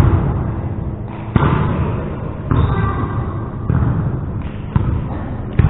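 Volleyball play in a gymnasium: a few sharp thuds of ball contacts and footfalls, about a second and a half in and twice near the end, over echoing hall noise.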